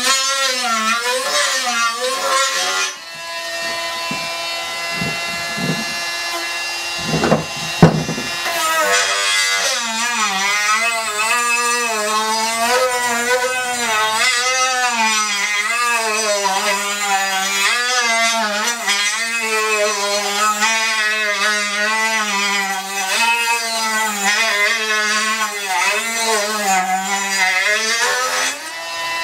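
Dremel rotary tool grinding excess paint out of the bushing bore of a lower control arm, its high whine wavering up and down in pitch as it bears on the metal. From about three seconds in it runs steadier and quieter, with a couple of sharp knocks near eight seconds, then the wavering grind resumes and stops just before the end.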